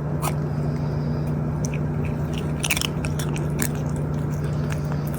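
Chewing and crunching: irregular sharp clicks over a steady low hum.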